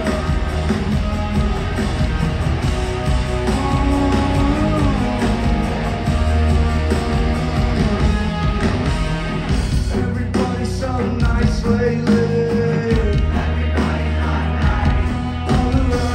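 Loud live rock music from a band on stage, with electric guitar, heavy bass and drums and some singing, recorded from the audience.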